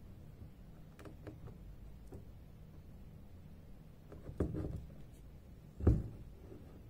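Hand embroidery: a needle passed through taut fabric and metallic gold thread drawn after it, heard as a few faint ticks, a short rustle, and a louder soft thump near the end.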